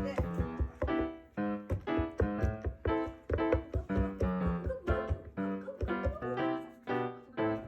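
Background music: a light keyboard tune of short, evenly paced piano-like notes.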